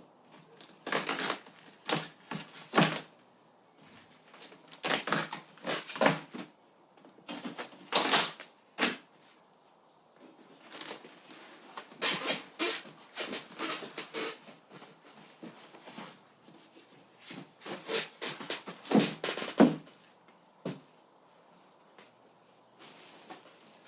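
Cardboard and packing material around a boxed table saw being handled: irregular bursts of rustling, scraping and knocking with short pauses between, dying down over the last few seconds.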